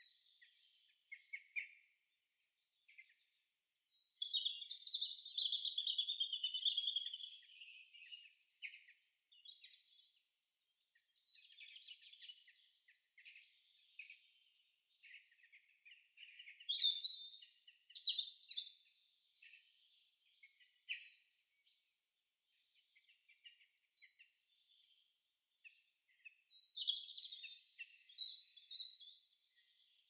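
Songbirds singing in separate high phrases of chirps and trills, with quiet gaps between. A long falling trill comes about four seconds in, and busier bursts come around the middle and near the end.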